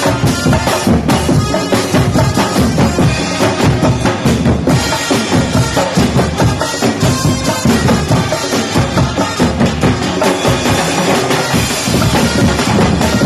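A percussion group of drums playing a loud, continuous rhythm, with heavy bass-drum beats under lighter hits.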